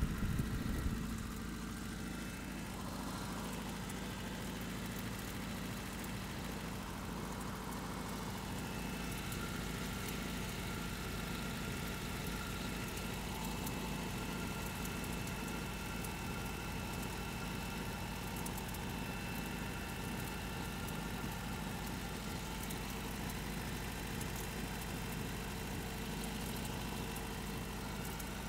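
Toyota 22RE 2.4-litre four-cylinder engine idling steadily, with a slightly louder moment right at the start. The owner suspects a knock from a worn timing chain or a rod bearing.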